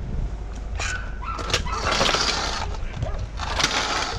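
Rustling noise in two longer stretches, about two seconds in and again near the end, among scattered sharp clicks and knocks.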